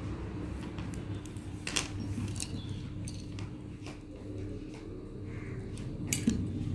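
Small sharp clicks of plastic pearl beads against a steel needle and a steel plate as beads are threaded, the sharpest one about six seconds in, over a steady low hum.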